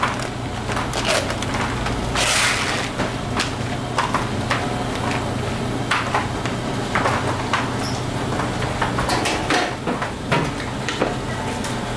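Workshop clatter: irregular knocks and clacks of utensils and containers being handled, over a steady low hum. A brief hissing scrape comes about two seconds in.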